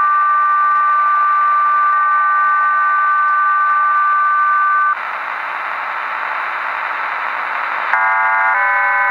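HM01 Cuban numbers station's digital signal heard on a shortwave receiver. A few steady tones held together stop abruptly about five seconds in, leaving radio hiss. Near the end a dense multi-tone data burst starts, with many tones sounding at once.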